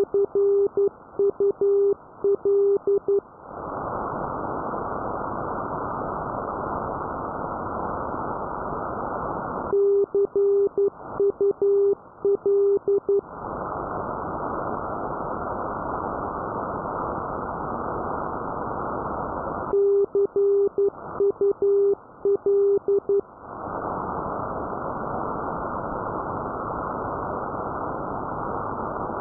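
Morse code (CW) signal received on a radio at 370 kHz: a steady tone of about 400 Hz keyed in short and long beeps spelling "CUL" (see you later). The group is sent three times, about ten seconds apart, with receiver static hiss rising in the gaps between them.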